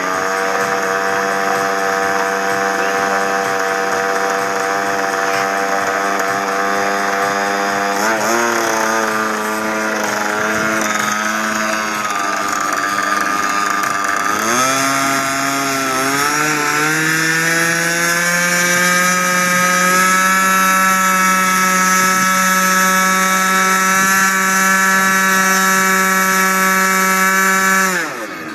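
Small engine of the flying lawnmower aircraft running loud and steady, changing speed in steps and climbing to a higher pitch about halfway through, then dropping away near the end.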